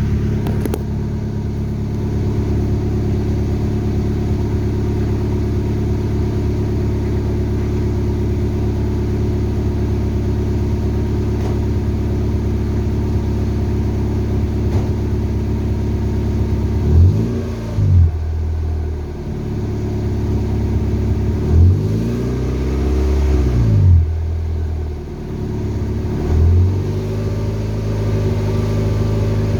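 Honda Civic LX's D17 1.7-litre four-cylinder engine on its stock exhaust, idling steadily. In the second half it is revved several times in quick blips, the pitch rising and falling each time, with one longer rev, before it settles back to idle.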